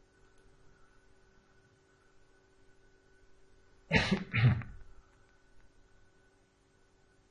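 A person coughs twice, about half a second apart, around four seconds in, over a faint steady electrical hum.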